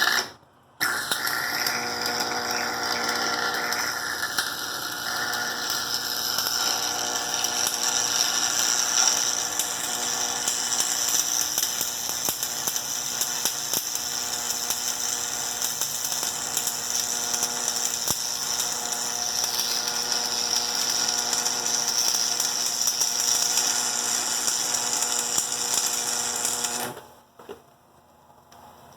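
Stick-welding arc crackling and hissing steadily as a Brutus welding rod is run down into a broken bolt to build it back up, at about 105 amps. A brief strike at the very start, then an unbroken arc from about a second in that cuts off near the end.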